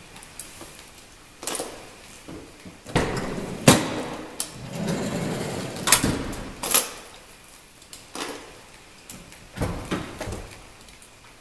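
Mazda5's rear sliding door pulled open by hand: sharp clicks, the door running back along its track for about a second, and a knock as it stops open. A few more clicks and knocks follow later on.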